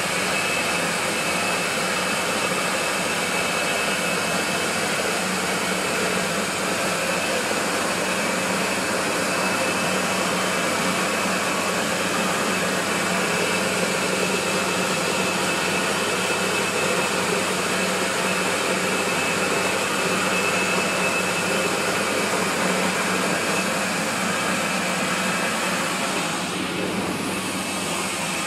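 Small rice milling machine with an electric motor running steadily while it mills rice: a loud, even rushing whir over a steady low hum and a thin high whine.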